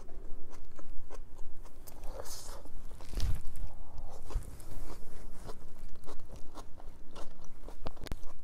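Close-miked eating: crunchy chewing of chicken Philly cheesesteak filling, with wet mouth clicks and a louder thud about three seconds in.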